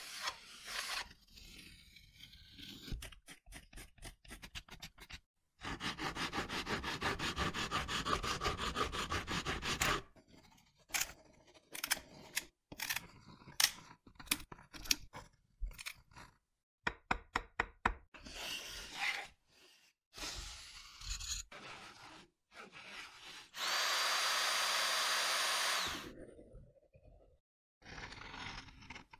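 Woodworking with hand tools: a hand saw cutting wood in quick, even strokes for about four seconds, then a scatter of sharp knocks and short scrapes. Near the end a small power tool runs steadily for about two seconds.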